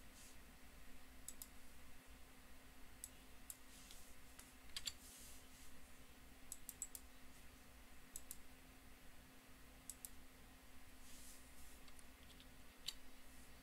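Faint computer mouse clicks and keyboard keystrokes, a dozen or so scattered sharp clicks over a steady low electrical hum.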